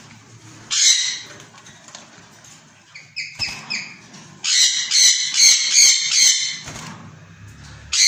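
White ringneck parakeets squawking. There is one loud harsh screech about a second in, a few short gliding calls around three seconds in, then a run of loud, repeated screeches, about three a second, from four and a half to six and a half seconds.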